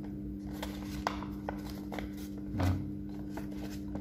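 A sheet of paper being handled and folded along its creases: scattered short crackles and crinkles of the paper, with a soft thump a little past halfway. A steady low hum runs underneath.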